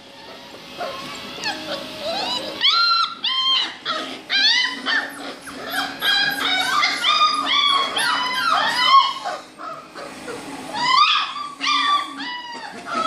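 A litter of young puppies whining, with many short high calls overlapping one another. A brief lull comes about ten seconds in, and then the calls start again. A steady low hum runs underneath.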